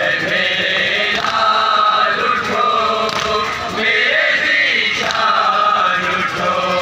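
A group of men chanting a noha, the Shia lament of Muharram, together in a loud steady group chant, with occasional slaps of hands striking chests in matam.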